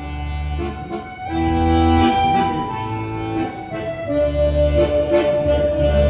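Instrumental music with no singing: a held, reedy melody line over repeated bass notes, the melody settling on one long note in the second half.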